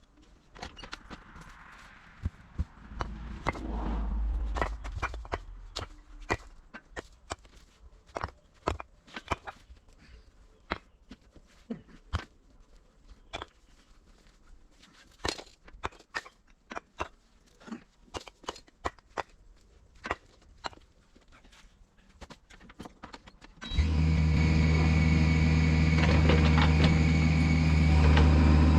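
Scattered sharp clicks and knocks, with a brief low rumble a few seconds in. Near the end, a heavy machine's diesel engine comes in abruptly and runs steadily.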